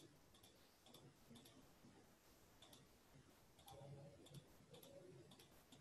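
Near silence, with faint scattered clicks at irregular intervals, about one every half second to a second.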